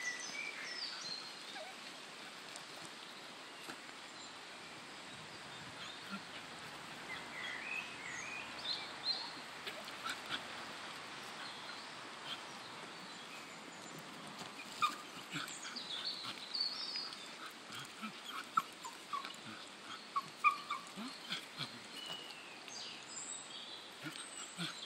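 Mini English bull terrier whining in short high-pitched whines that come in bursts, a dog eager for his bottle in the water but unwilling to go in after it. A faint steady rush of the stream lies behind.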